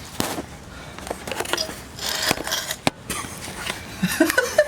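Scattered clicks, light knocks and short scrapes of metal suspension parts and hand tools being handled, with one sharp click about three seconds in.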